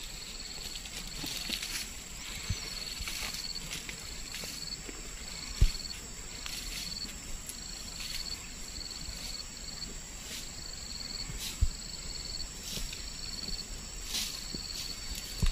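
Insects trilling in a high-pitched pattern that repeats in short stretches with brief gaps, over a steady higher whine. A few faint rustles and two or three dull thumps come through.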